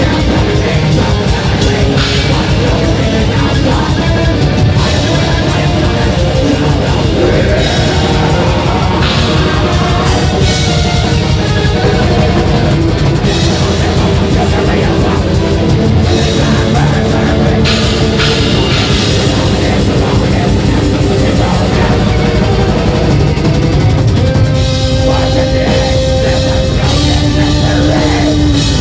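Symphonic black metal band playing live at full volume: distorted electric guitar and a drum kit, with keyboards on stage, continuous.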